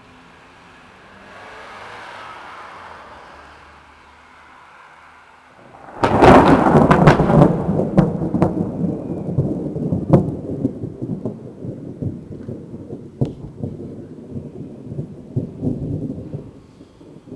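A thunderclap about six seconds in: a sudden crackling crack, then a long rolling rumble that slowly fades.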